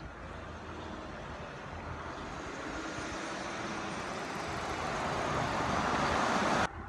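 A Hyundai SUV coming up from behind and drawing alongside a bicycle: a steady road and engine noise that grows steadily louder, then cuts off suddenly near the end.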